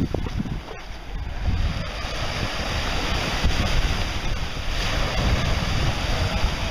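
Small surf waves washing in the shallows, with wind buffeting the microphone.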